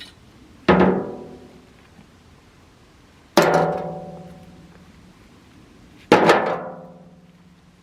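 Three loud ringing clangs, evenly spaced about two and a half seconds apart, each dying away over a second or two: large rocks being cleared from the ground and thrown down one at a time.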